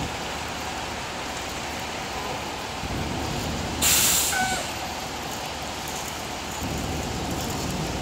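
A fire engine's air brakes give one short, loud hiss about four seconds in, over the truck's steady low engine rumble.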